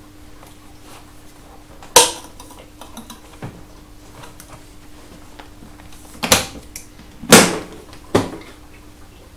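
Hard motorcycle pannier being handled during packing: the case and its lid knock and clack, one sharp knock about two seconds in and three more close together near the end, with smaller clicks between.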